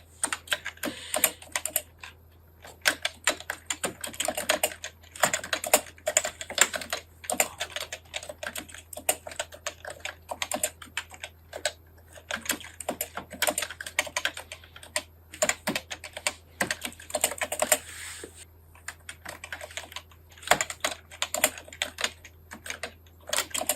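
Fast touch-typing on a computer keyboard in the thumb-shift (NICOLA) kana layout: dense runs of rapid key clicks broken by brief pauses, over a faint steady low hum.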